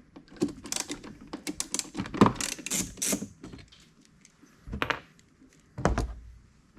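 Small clicks and ticks of a Torx driver and screws being worked out of a plastic air intake box, in a quick run over the first few seconds, then two separate knocks.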